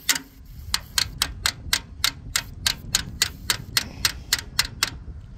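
Even, sharp metallic taps, about four a second, stopping just before the end: a hammer tapping on the valve gear of a seized Farmall M engine to free a stuck valve.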